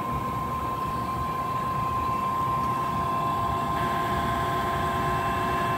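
A 460-volt three-phase electric motor driving a freshly rebuilt gearbox with new bearings and seals, running steadily with no load on the output shaft: an even hum with a steady high-pitched whine.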